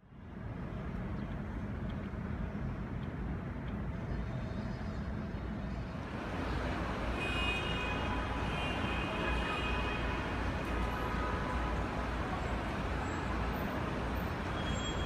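Steady low rumble of taxi traffic, cars idling and moving slowly through the taxi lanes, rising quickly out of silence at the start. A few faint high-pitched tones sound over it in the second half.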